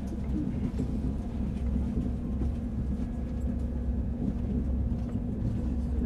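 Interior ambience of a German ICE high-speed train running slowly: a steady low rumble from the running gear with a constant hum, and a few faint clicks.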